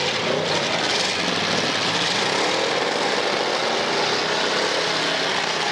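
Engines of several full-size demolition derby cars running and revving together in a dense, steady din.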